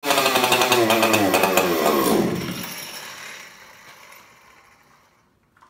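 Husqvarna 266 XP two-stroke chainsaw with its stock muffler running loudly, then, about two seconds in, its pitch sags and the engine winds down and dies as it runs out of fuel.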